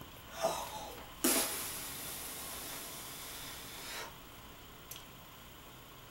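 A person blowing air out through pursed lips: a short breathy puff about half a second in, then a sharp puff that runs on into a steady hiss of breath for about three seconds and stops abruptly.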